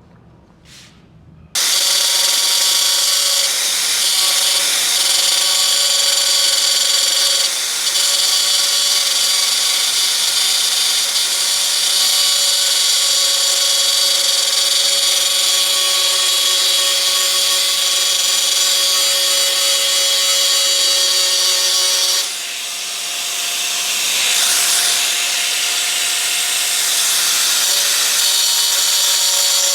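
An electric hand grinder runs steadily against sheet metal, starting about a second and a half in, with a constant whine over a hissy rasp. About two-thirds through it eases off for a couple of seconds, as if lifted from the metal, then bears down again.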